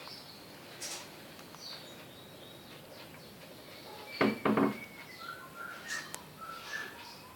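Small birds chirping intermittently, with short high chirps and whistled notes. About four seconds in comes a louder, short pitched cry in two parts.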